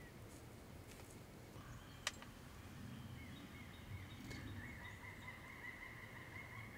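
Faint outdoor ambience with distant bird calls: a long, faint, high trill through the second half, and a single sharp click about two seconds in.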